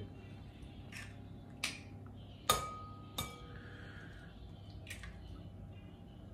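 Eggs being cracked into a glass mixing bowl: about five sharp taps and clinks of eggshell on glass. The loudest comes about two and a half seconds in and leaves a brief ring from the glass.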